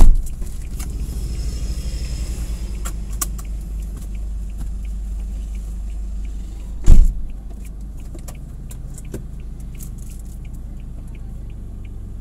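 Vehicle engine idling with a steady low rumble, broken by two loud thumps, one right at the start and one about seven seconds in. A light regular ticking runs through the second half.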